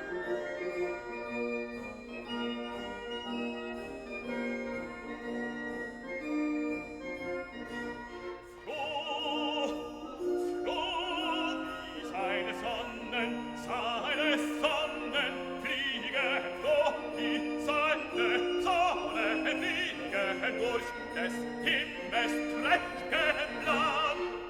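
Background music: slow held keyboard chords, joined about nine seconds in by a high melody with strong vibrato that carries on over the chords.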